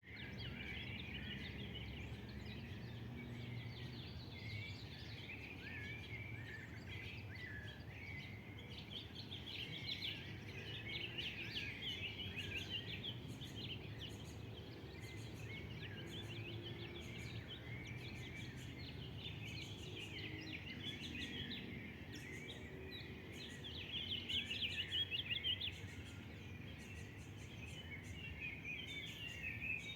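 Several birds chirping and singing at once, short quick notes overlapping, over a steady low background rumble. The chirping is busiest a third of the way in and again near the end, where it is loudest.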